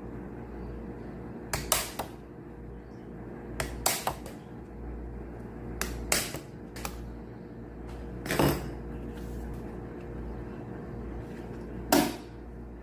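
Handheld single-hole paper punch clicking shut as it cuts holes along the edge of a sheet, one sharp click every couple of seconds. Near the end comes a louder metallic snap as the punched sheets go onto a metal ring binder mechanism.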